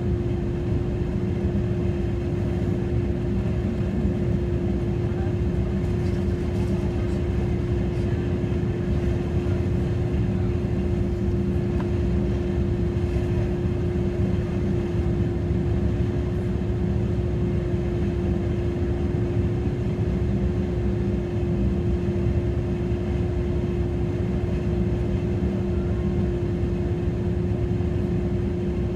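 Steady running noise inside a moving regional passenger train: a low rumble with one constant droning tone that holds unchanged.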